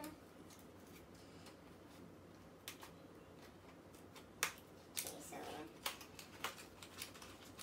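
Small scissors snipping the plastic wrapping of a small boxed case: a few faint scattered clicks, the sharpest about four and a half seconds in, followed by a brief rustle of plastic.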